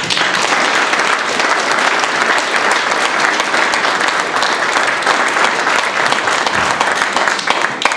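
Audience applauding, many hands clapping steadily; it starts suddenly and stops abruptly near the end.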